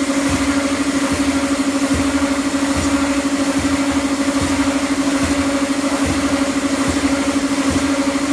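Escalator step-cleaning machine running with a loud, steady hum that has a fast flutter in it, while the escalator steps pass beneath; soft low knocks come at uneven intervals.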